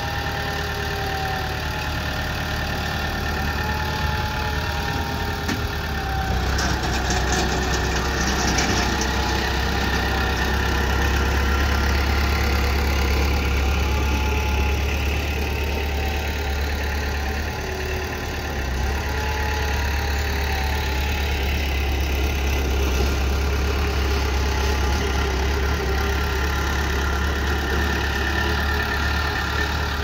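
Small Komatsu crawler bulldozer's diesel engine running steadily as the machine works sand, louder from about six seconds in and dipping briefly near eighteen seconds, with short squeaks now and then.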